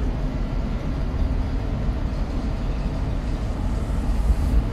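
Ship underway at sea: a steady low rumble with a rushing wash of noise over it.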